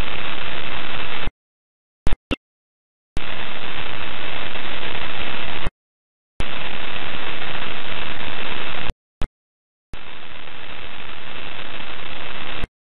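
Radio static on the space station's air-to-ground audio channel: bursts of loud hiss, each about two and a half seconds long, that switch on and off abruptly to dead silence, with a thin steady whine inside the hiss and a few short pops between bursts.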